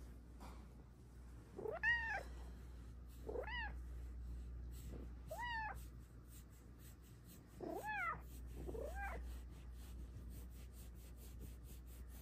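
Silver Bengal cat giving five short meows, each rising and then falling in pitch, the last about nine seconds in: sweet meows asking for cuddles.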